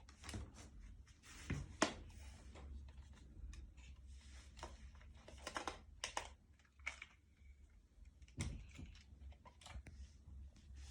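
Faint, irregular clicks and soft rustles from a remote-control dinosaur toy and its controller.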